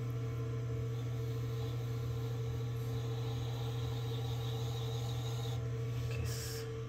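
Steady hum of an electric potter's wheel turning a porcelain sake cup on a clay chuck, with the faint scrape of a trimming tool shaving the leather-hard porcelain through the middle and a short hiss near the end.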